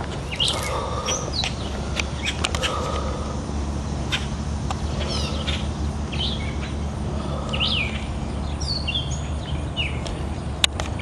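Small birds chirping, many short, sharply falling notes over a steady low background rumble, with a few sharp clicks, the loudest near the end.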